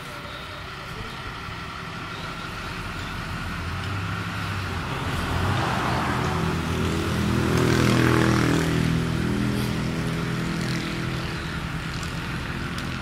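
A motor vehicle passing by: its engine grows louder, is loudest about eight seconds in, then fades away.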